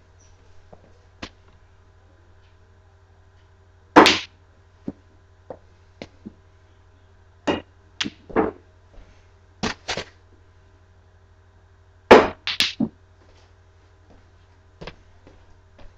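Sharp clacks of a mini tabletop pool table's balls: cue striking the ball and balls knocking together and against the rails, some single and some in quick runs of two or three, the loudest about four seconds in and again about twelve seconds in.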